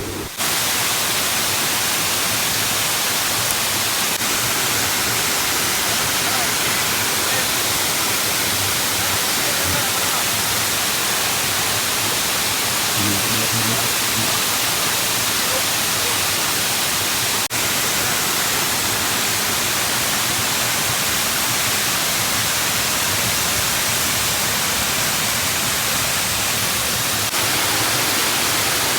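Waterfall rushing: a steady, loud wash of falling water, with a brief click about seventeen seconds in.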